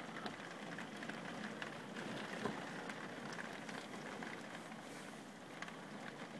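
Heavy rain falling steadily, heard from indoors through a window, with scattered light taps of drops.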